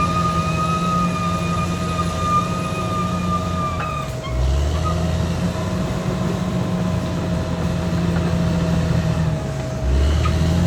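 Caterpillar D6R XL bulldozer's diesel engine running steadily, with a high steady whine over it that stops about four seconds in. The engine note deepens briefly about four seconds in and again near the end.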